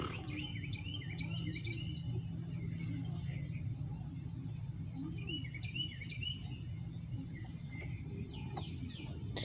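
Small birds chirping in several short bouts, over a steady low background rumble.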